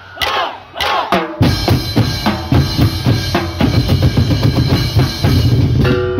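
Kulintang drum-beating ensemble: the players shout together for about the first second, then loud, fast drumming on barrel and goblet drums with cymbal crashes.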